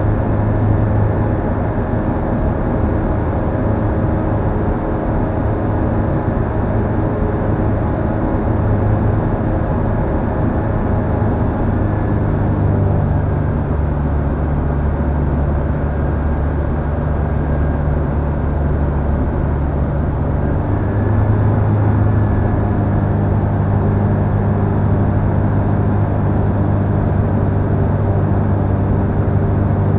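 Comco Ikarus C42B ultralight's engine and propeller droning steadily in cruise, heard inside the open cockpit. The tone shifts slightly about twelve seconds in and again around twenty-one seconds in, a little louder after the second change.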